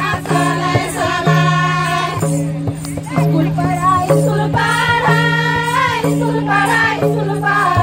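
Kurukh folk song: voices singing together in phrases over held low notes, with barrel-drum strokes beneath.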